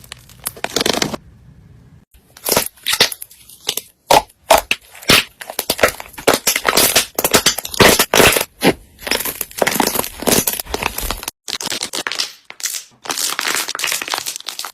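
Slime being squeezed and pressed by hand: a quick, irregular run of clicks and crackles, with short pauses between handfuls.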